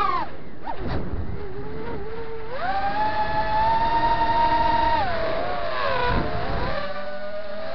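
FPV quadcopter's electric motors and propellers whining, with the pitch following the throttle. The pitch drops sharply just after the start and stays low, climbs again at about two and a half seconds and holds, then falls and wavers near the end.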